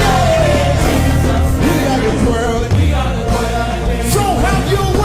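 Live gospel worship music: voices singing over a full band with heavy bass.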